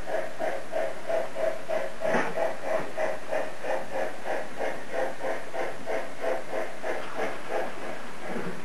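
Model steam locomotive's sound module chuffing in an even rhythm, about three chuffs a second, as it hauls its train.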